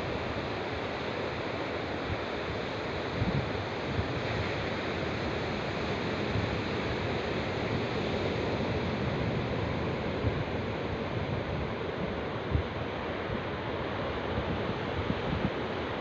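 Steady rush of sea surf and wind, with a few brief low buffets of wind on the microphone.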